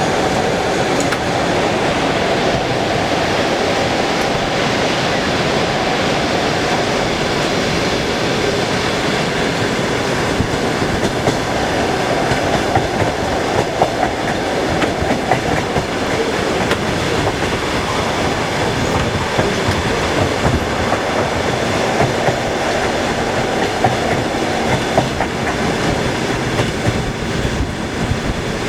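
Train running on the rails: a steady rumble with the clickety-clack of wheels over the rail joints, the knocks coming through more sharply after about ten seconds.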